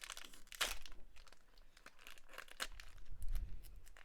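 Foil wrapper of a Pokémon card booster pack crinkling and crackling as it is gripped and torn at; the pack is stiff and hard to open.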